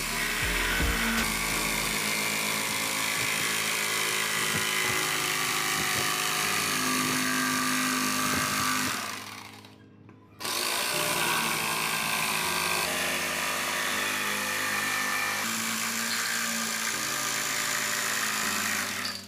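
Electric jigsaw cutting through a thick hardwood slab along a marked line. It stops briefly about halfway and then starts cutting again. Background music plays underneath.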